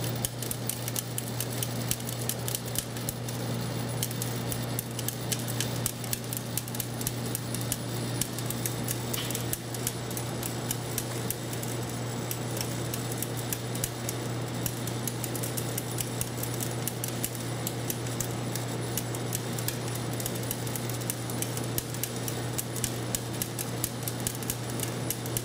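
Steady hum of the sorting machine's vibratory feeder, with a rapid, irregular patter of white wheat kernels ticking as they are fed down through the chute.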